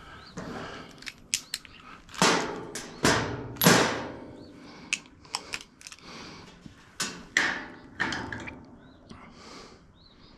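Hand tools and metal hardware being handled: irregular sharp clicks and a handful of louder clanks and knocks, the loudest a little after two and three seconds in.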